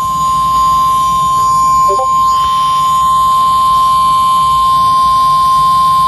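NOAA Weather Radio 1050 Hz warning alarm tone: one steady, unbroken tone held throughout. It is the attention signal that comes just before a National Weather Service warning or watch message is read.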